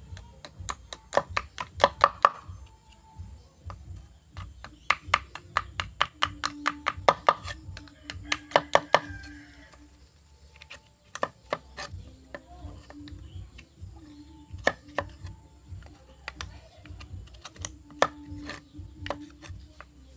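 A machete blade chopping and shaving slivers off a piece of plastic pipe held against a wooden board: quick runs of sharp taps, several strokes a second, in bursts with short pauses and scattered single strokes between.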